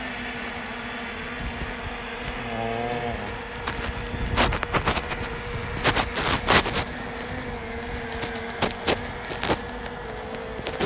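Quadcopter drone (Parrot ANAFI AI) flying, its propellers giving a steady hum. A dove coos once about two and a half seconds in, and a run of sharp clicks and knocks comes in the middle.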